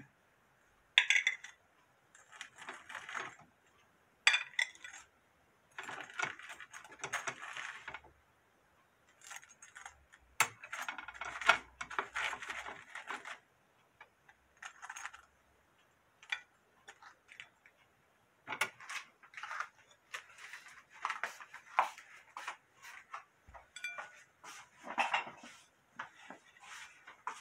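Metal tongs clinking and clattering against a wire frying basket and ceramic plates as fried croquettes are lifted out and stacked, in short, irregular bursts.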